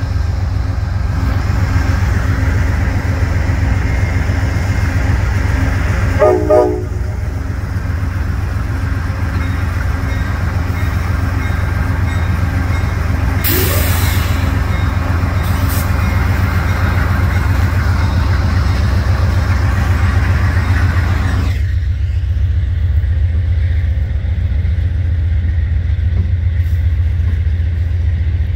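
Amtrak passenger train led by a GE P42DC diesel locomotive rolling past at close range, a steady low rumble of engine and wheels on rail. A short horn toot sounds about six seconds in, and a brief metallic clatter comes around fourteen seconds. The higher-pitched wheel noise cuts off suddenly about twenty-one seconds in, leaving the low rumble.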